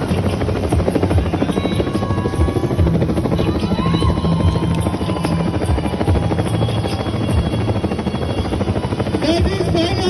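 Helicopter passing low overhead, its rotor chopping steadily and loudly. Voices come in over it near the end.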